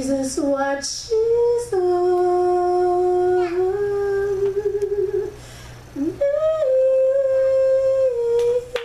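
A single voice singing a slow tune without clear words, holding long notes that slide from one pitch to the next, with a brief pause for breath about five seconds in.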